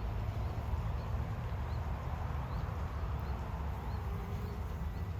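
Honey bees buzzing steadily around a log hive, with faint short high chirps repeating about twice a second.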